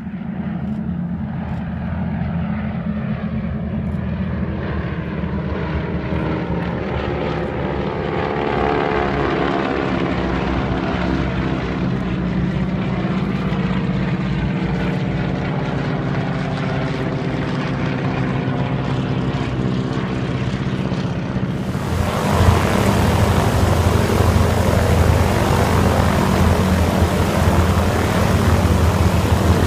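Several radial-engine propeller planes flying overhead in formation: a steady engine drone whose pitch bends as they pass. About 22 seconds in the sound cuts abruptly to louder, rougher engine noise from the planes running on the ground with their propellers turning.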